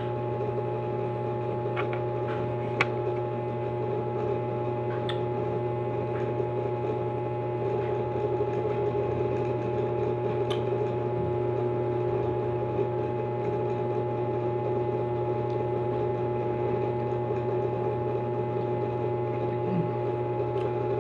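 Steady machine hum with several fixed tones throughout, with a few short sharp crunches of cucumber being bitten and chewed.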